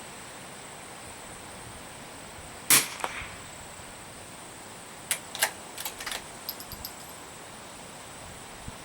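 A single shot from a Remington 513T bolt-action target rifle in .22 LR, a sharp crack a little under three seconds in. About two seconds later comes a quick run of metallic clicks: the bolt being worked to eject the spent case and chamber the next round.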